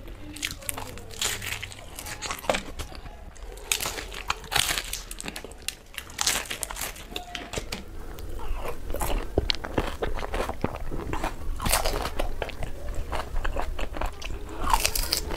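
A person eating close to the microphone: crunchy bites and chewing of fried Indian street snacks, heard as many short, sharp crackles.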